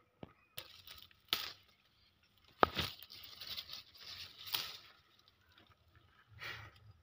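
Chilli plant leaves and stems rustling and crackling in short, irregular brushes as a hand pushes through the foliage, the loudest about a third of the way in and again past the middle.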